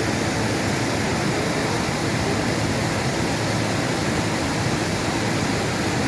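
Steady, loud rushing of a flooded stream's water.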